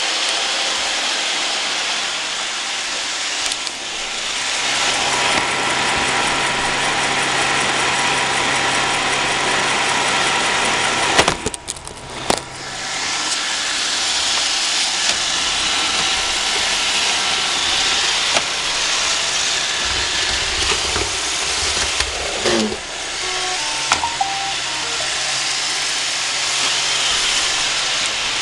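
Roomba robot vacuum cleaner running: a steady whirring hiss of its motors and brushes, broken by a brief dip and a few clicks about eleven seconds in.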